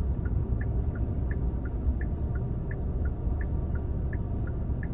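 Car turn signal ticking in a steady two-note tick-tock, about three clicks a second, over the low rumble of the car's cabin.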